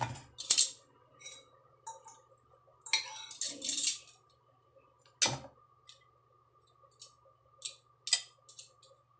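Metal tongs clinking and scraping against a ceramic bowl and the fork in it while mixing a breadcrumb topping: scattered sharp clinks, a few louder ones, with short gaps between.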